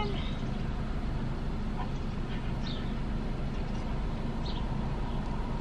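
Steady low rumble of an idling car heard from inside the cabin, with a few faint, short high chirps now and then.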